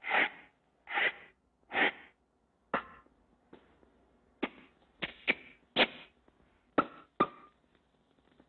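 A string of about ten short cartoon sound effects: three fuller squeak-like sounds about a second apart, then a run of sharp smacks, some with a brief squeak in them. This is the early sound-cartoon treatment of Minnie grabbing and hugging Mickey.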